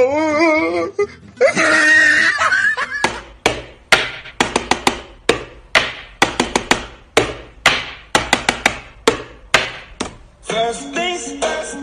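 A voice with a wavering, laughing tone and brief speech come first. Then wall light switches click rapidly on and off, about four sharp clicks a second for several seconds. Music starts near the end.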